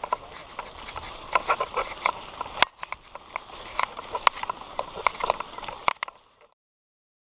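Mountain bike clattering and rattling over a rough dirt trail, with many irregular knocks over a steady rush of tyre and trail noise. It cuts off suddenly about six seconds in.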